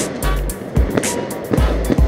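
Background music with a heavy bass line and a steady, driving beat.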